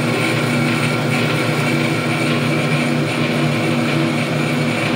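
Delta 14-inch bandsaw running on its jackshaft pulley-and-belt reduction drive, a steady mechanical hum of motor, belts and pulleys. This is a test run to see whether moving the big pulley inward has cut the belt's wiggle.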